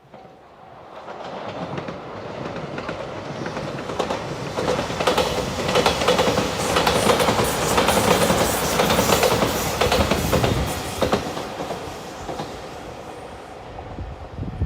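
Electric passenger train passing at speed, its wheels clicking over the rail joints. The sound builds for the first few seconds, is loudest in the middle and fades away near the end.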